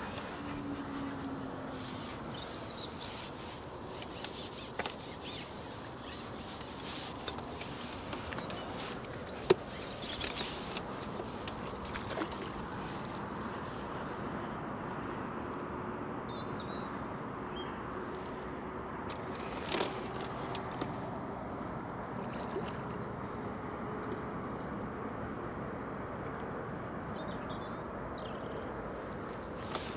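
Steady outdoor background hiss at the waterside, broken by a few sharp clicks, the loudest about nine seconds in, and a few faint high chirps near the end.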